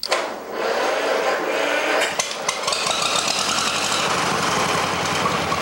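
John Deere MT tractor's two-cylinder engine running after being fired up, uneven for the first couple of seconds and then settling into a steady, even rhythmic beat. It is called a really sweet sounding engine.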